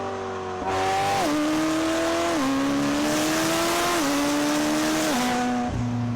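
Race car engine accelerating through the gears: the engine note climbs and then drops sharply at each shift, about four times, over a rushing noise, and cuts off just before the end.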